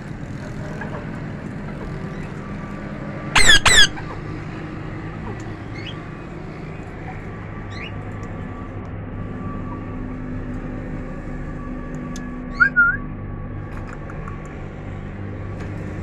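Parakeet giving two loud, harsh squawks in quick succession about three and a half seconds in, then a shorter two-part squawk about three-quarters of the way through. A steady low hum and a few faint high chirps from other small birds run underneath.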